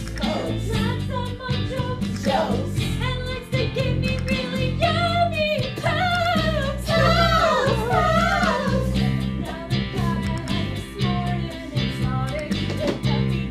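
A woman singing a stage-musical song over instrumental accompaniment with a steady bass rhythm. About five seconds in, she holds long, wavering notes.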